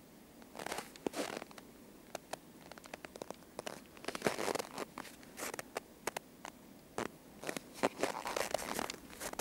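Footsteps crunching and squeaking in dry, frozen snow, in an irregular run of short crunches and clicks.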